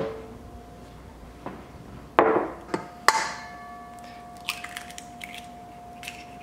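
An egg knocked three times against the rim of a stainless steel mixing bowl, about two to three seconds in. The bowl rings on with a steady tone after the last knock, and a few faint clicks follow.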